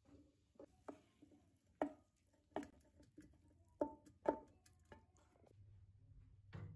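Wooden spatula knocking and scraping against a metal frying pan as cooked beef chunks are pushed out into a glazed clay pot. It makes a series of sharp, irregular knocks, the loudest about two and four seconds in.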